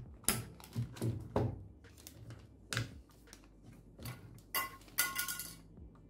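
Plastic push-pins of a CPU cooler being pressed into the motherboard's mounting holes: a series of sharp clicks and knocks, with a brief ringing click near the end. The clicks are the pins latching, the sign that the cooler is locked down onto the CPU.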